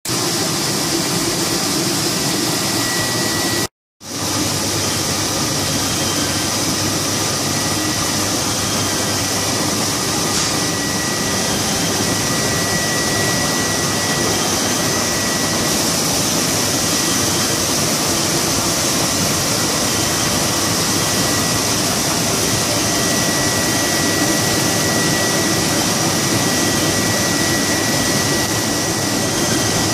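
Codimag Viva 340 label printing press running, a steady machine whir with a thin high whine over it. The sound cuts out completely for a moment a little under four seconds in, then carries on unchanged.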